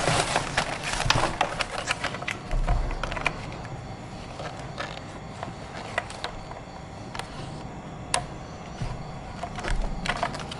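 Irregular light clicks and taps, thick in the first couple of seconds and sparser after, with a soft low thump twice.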